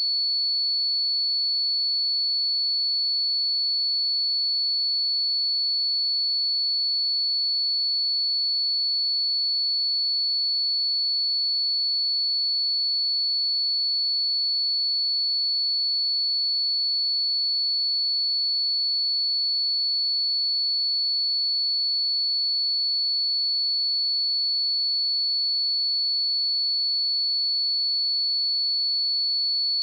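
A pure 4428 Hz sine-wave test tone, one steady high-pitched note with no change in pitch or level.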